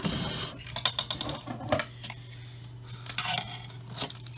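Scattered sharp clicks and light clattering, with a brief rustle at the start, over a steady low electrical hum.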